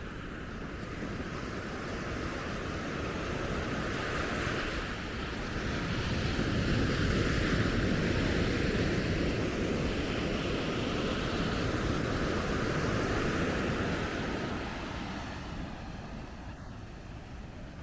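Sea surf breaking on a sandy beach: the wash of the waves swells to a peak around the middle and dies back near the end.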